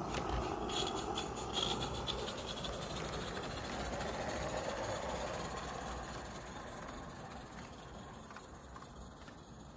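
Small live-steam garden railway locomotive and its coaches passing close by, with a rapid clicking and rattling of wheels on the track, loudest in the first couple of seconds. The sound fades as the train runs away.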